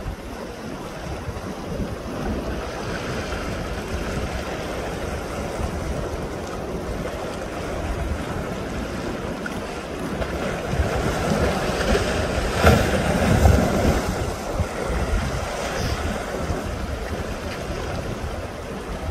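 Seawater washing and splashing against the rocks of a rock wall, with wind rumbling on the microphone. The wash swells to a louder surge about two-thirds of the way through.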